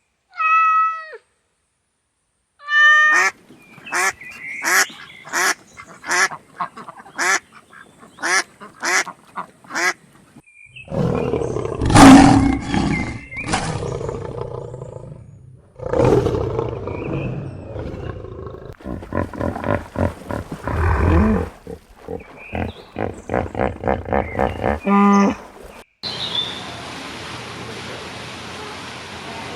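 Farm animal calls in a string of separate clips: a short call at the start, then a run of repeated calls about one and a half a second, then louder, rougher calls, ending in a steady hiss near the end.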